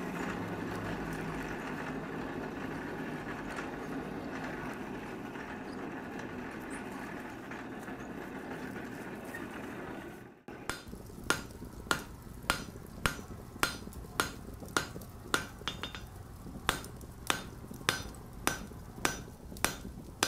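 Coal forge fire burning with a steady rushing noise for about ten seconds. After a brief break comes a steady rhythm of hammer blows on an anvil, about one and a half to two a second, each ringing briefly.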